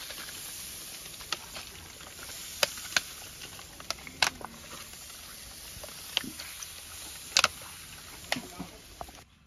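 Jerk chicken on a charcoal jerk pan grill sizzling with a steady hiss as seasoned marinade is poured over it, with sharp crackling pops scattered through. The sound cuts off suddenly near the end.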